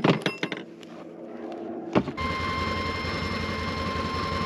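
A few clicks and a clatter, then a sharp click about two seconds in as an electric motor starts and runs steadily with a low hum and a thin whine: the power dump bed of a Can-Am 6x6 tilting up.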